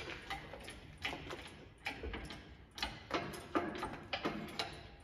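Hydraulic engine hoist being jacked by its pump handle, a sharp clack with each stroke, about one a second, as it takes up the load of an engine on its chain.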